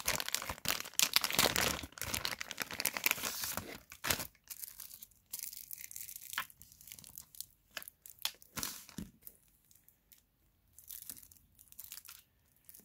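Thin clear plastic packaging crinkling and rustling as a pair of glasses is unwrapped, dense over the first four seconds, then quieter intermittent rustles with a few light clicks.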